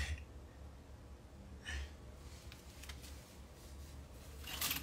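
Quiet small-room tone with two brief rustles of clothing being handled in a closet, a soft one about two seconds in and a louder, brighter one near the end.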